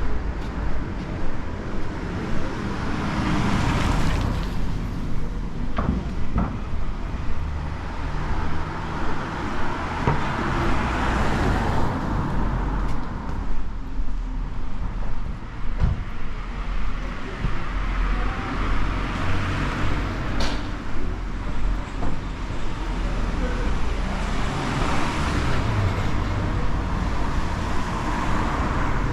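Street traffic: a steady low rumble of engines with vehicles passing one after another, each swelling and fading, four in all, with a few short sharp clicks in between.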